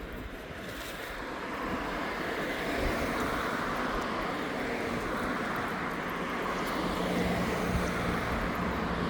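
Road traffic noise from vehicles passing on the road, swelling in the first couple of seconds and then holding steady.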